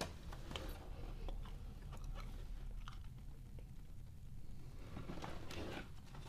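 Hands handling and turning over a cardboard box: scattered light taps, scrapes and rustles of fingers and palms on the box, busiest about five seconds in.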